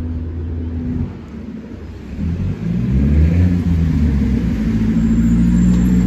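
City street traffic: a motor vehicle's engine rises in pitch as it accelerates about two seconds in, then holds a loud, steady drone.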